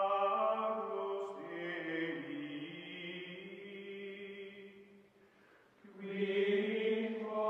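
Choral chant-like music: voices holding sustained chords that shift slowly in pitch. The music dips almost to silence about five seconds in and swells back about a second later.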